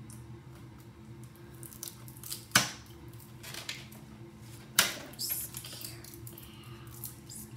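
A small plastic makeup palette being handled and opened: light clacks and rustles, with two sharp clicks about two and a half and five seconds in, over a steady low hum.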